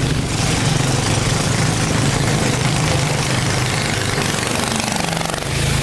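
Boat engine running steadily with a low hum, over the rush and hiss of water along the hull. The engine note weakens near the end and then comes back.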